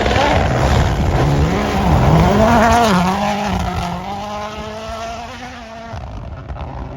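Rally car driving past: the engine revs up and down through gear changes, loudest about two to three seconds in, then holds a steadier note as it pulls away and fades.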